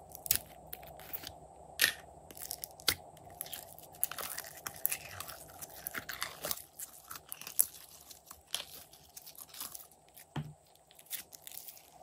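Orange glitter slime being squeezed by hand out of a clear plastic tube, making irregular crackling and sticky clicking and popping, with a few louder snaps.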